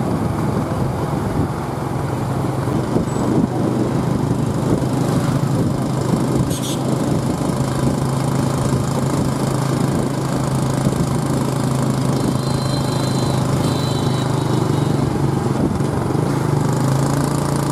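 Small motorcycle engine running steadily while riding along in traffic, its low drone mixed with road and wind noise.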